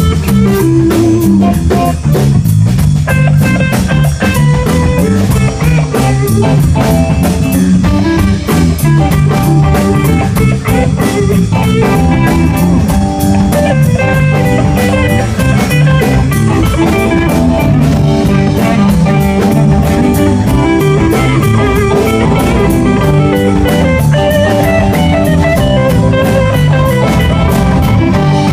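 Live rock band playing, with electric guitar over a steady drum-kit beat.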